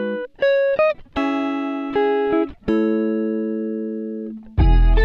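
Background music: a guitar plucking a few short notes, then two longer notes or chords left to ring out and fade. A louder, fuller part with a deep bass comes in just before the end.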